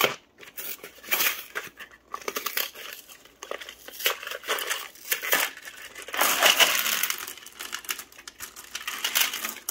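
Cardboard boxes of 9mm ammunition being torn open and crumpled, with loose brass cartridges tipped from their trays clinking onto a pile of rounds in a metal ammo can. The rustling and clinking come in uneven handfuls, with a longer, louder stretch a little past the middle.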